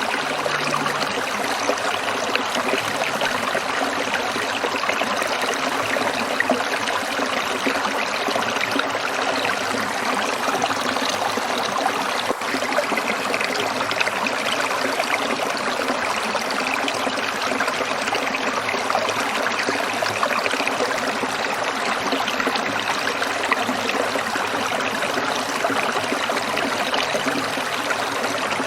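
Water trickling and splashing steadily over stones in a small stream, an even, continuous babble.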